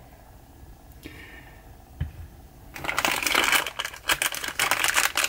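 Clear plastic packaging crinkling and rustling in someone's hands, starting a little under three seconds in after a soft knock.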